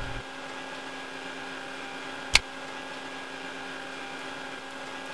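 Steady hum of underground mine ventilation fans and groundwater pumps: a constant airy drone with a few held tones. A single sharp click cuts in about two seconds in.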